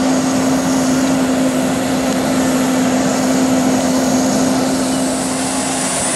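A running engine: a steady drone with one constant hum over a wide rushing noise, unchanging throughout.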